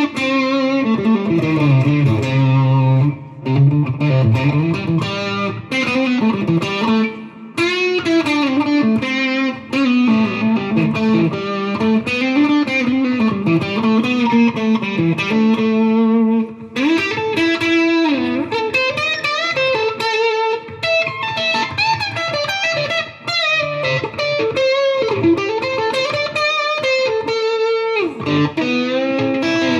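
Fender Deluxe Players Stratocaster electric guitar played through a Fender Mustang GTX100 modeling amp preset: a continuous run of single-note lines and chords with string bends and vibrato.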